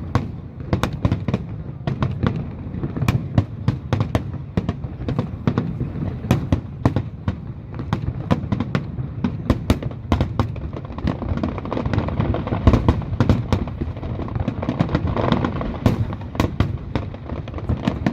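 Aerial fireworks display: many sharp cracks and booms of bursting shells, several a second, over a dense rolling rumble and echo.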